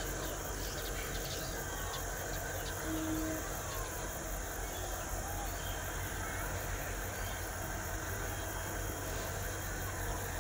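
Low, steady rumble of two CC 205 diesel locomotives heading a long coal train as it approaches, under a constant high insect buzz and a few faint bird chirps.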